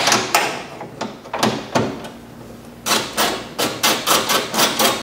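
Ratchet and 10 mm socket clicking while loosening the bolts that hold the window glass to the regulator inside a car door: a few scattered clicks, then a quick run of clicks about three seconds in.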